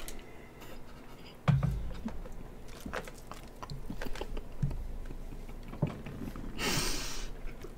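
Close-miked chewing and biting into a chocolate-iced sprinkle doughnut, with small wet mouth clicks. A dull thump about a second and a half in is the loudest sound, and a short hiss comes near the end.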